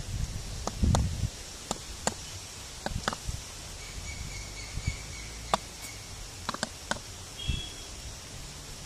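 Outdoor background with scattered sharp clicks and taps and a brief low rumble about a second in. Faint thin high calls sound in the middle and again near the end.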